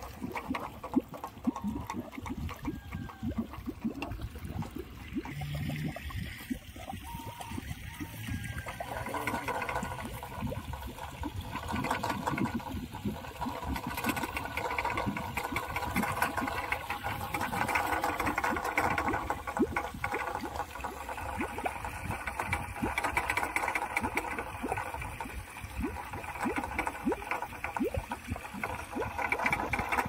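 Homemade plastic-bottle wind spinner, a rat and bird scarer, turning in the wind and clattering on its metal rod in a fast, uneven run of clicks. A steady rushing sound grows louder about five seconds in.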